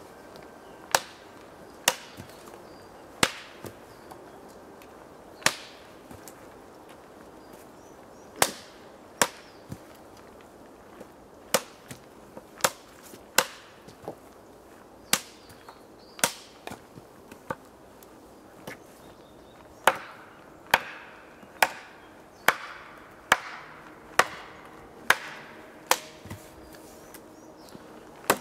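Fiskars X10-S axe chopping a wooden pole laid across a stump chopping block: sharp single strikes of the blade into wood, irregular at first, then coming quicker, about one every two-thirds of a second, in the last third.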